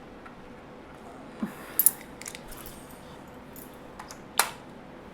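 Sharp plastic clicks and knocks of a ring light and tripod kit being handled and fitted together: a few clicks about a second and a half to two seconds in, the loudest of them near two seconds, and one more about four and a half seconds in.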